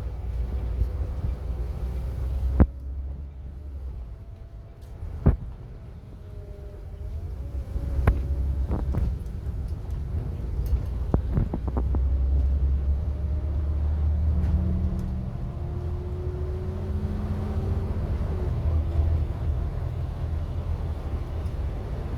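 A coach engine and road rumble heard from inside the passenger cabin, the engine note slowly rising and falling, with a few sharp knocks and rattles.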